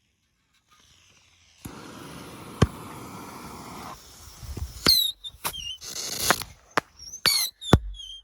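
Straggler bottle rockets being set off: a steady hiss for about two seconds with one sharp crack, then from about five seconds in a quick string of sharp pops and reports, some with short falling whistles.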